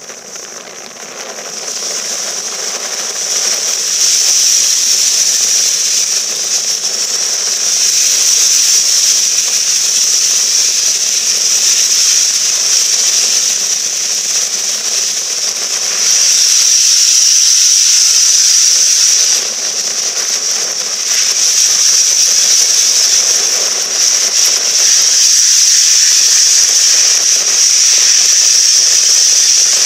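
Steam hissing steadily from low down around the cylinders and wheels of the LMS Princess Coronation Pacific 46233 Duchess of Sutherland as it stands. The hiss swells over the first few seconds, then holds loud and even, with no exhaust beats.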